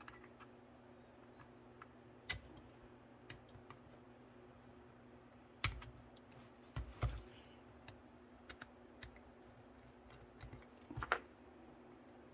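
Scattered light clicks and taps as a small screwdriver backs screws out of an HO-scale model steam locomotive, with a few louder knocks, over a faint steady hum.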